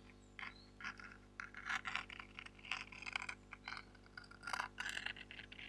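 Irregular, quick scratches and taps on a small cardboard box held right up to a clip-on lavalier microphone.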